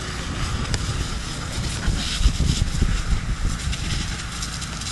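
Wind buffeting the microphone in gusts, strongest about two to three seconds in, over a steady hiss.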